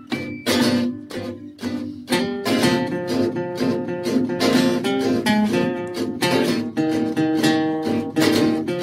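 Background music: strummed acoustic guitar, chords struck in quick succession.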